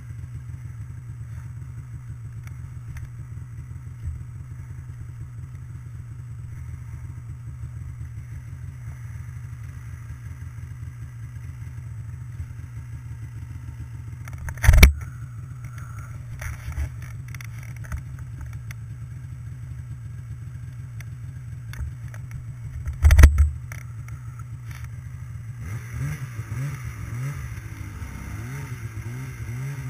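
Snowmobile engine running steadily at trail speed, with two loud thumps about halfway through and again later. Near the end the engine speed rises and falls.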